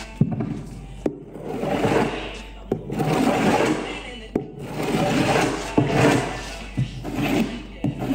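Background music, swelling and fading about once a second, with a few sharp clicks.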